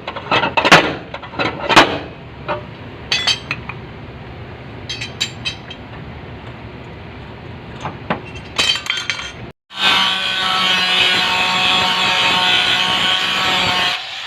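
Sheet-metal body panel struck a number of times, sharp metallic knocks and clinks that ring briefly. After a sudden cut, a power tool runs steadily and loudly on the metal.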